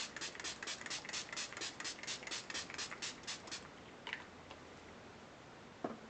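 e.l.f. setting spray's pump-mist bottle spritzed over and over, about five quick hissing sprays a second, stopping about three and a half seconds in. A faint click and a small knock follow.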